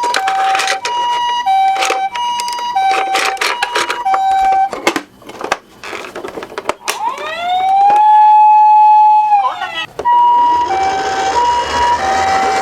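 Toy ambulance's electronic two-tone 'pee-po' siren alternating between a higher and a lower pitch, with sharp clicks and clatter from the minicars. About five seconds in the siren stops for a stretch of clatter, then a single wailing siren tone rises, holds for about two seconds and falls, and the two-tone siren comes back over a low rolling rumble.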